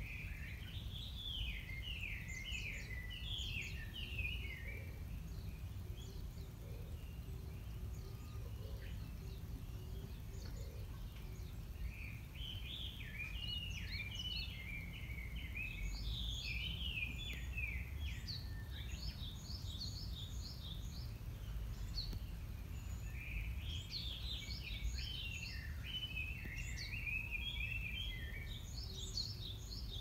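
A wild songbird singing long runs of quick, high chirping notes in three stretches with short pauses between, over a steady low background rumble.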